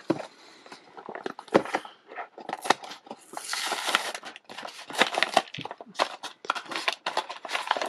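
Clear plastic blister being pried and peeled off a cardboard action-figure card: irregular crackling and clicking of the plastic, with a stretch of card tearing about three seconds in.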